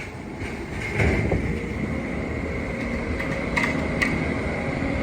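Heavy equipment engine running steadily, with a constant high whine over it and a couple of sharp metal clinks near the end.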